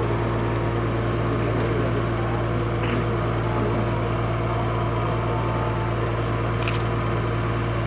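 A steady low hum under a constant background noise, unchanging throughout, with a faint click near the end.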